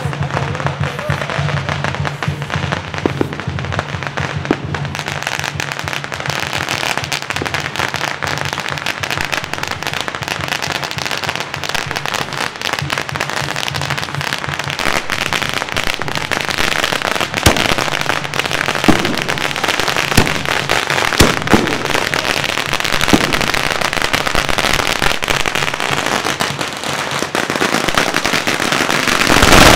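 Strings of red paper firecrackers going off continuously as a dense, rapid crackle, with a few louder single bangs in the second half.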